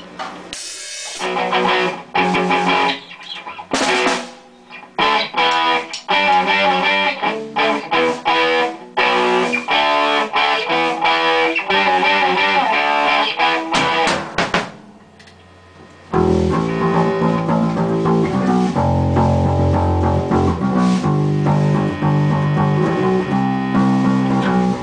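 Rock band rehearsing with electric guitars and a drum kit, heard through a camera's built-in microphone, so not very clear. It opens with a few stop-start hits, then the full band plays. Around the middle it drops off briefly, and it comes back in about two-thirds through with a heavier, bass-heavy section.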